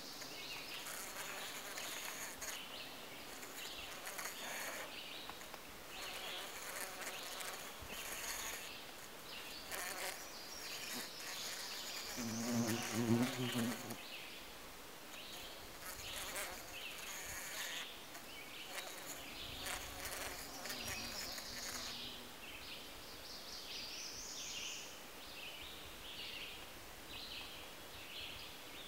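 A bee buzzing inside the pouch of a Kentucky lady's slipper orchid (Cypripedium kentuckiense) as it moves around the floor and walls of the lip. The buzz comes and goes, loudest about halfway through, with a fainter stretch a little later.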